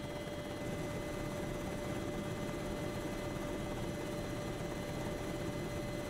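Steady engine drone of the aircraft filming the footage, heard from inside its cabin, with a constant whine on top.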